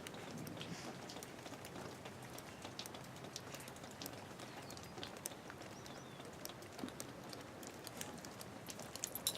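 Faint, irregular patter and light crunching of feet moving through fresh snow, scattered small ticks over a soft hiss.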